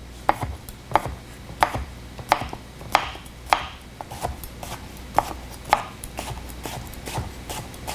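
French chef's knife dicing a peeled cucumber on a wooden cutting board: a steady series of sharp knife strikes against the board, about two a second.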